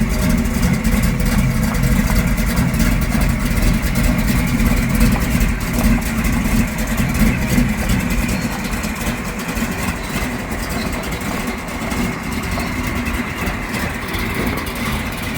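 1972 Chevrolet El Camino SS V8 engine idling with a deep, steady sound, easing slightly in loudness about halfway through.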